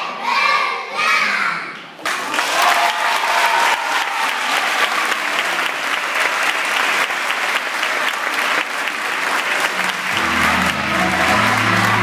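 Young children's voices calling out together for about two seconds, then audience applause breaks out suddenly and carries on. Background music with a steady bass line comes in under the clapping near the end.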